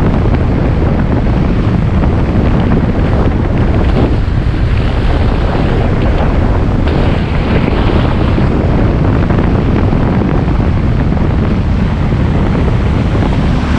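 Steady wind buffeting a camera microphone on a moving motorbike, a loud, low rushing noise.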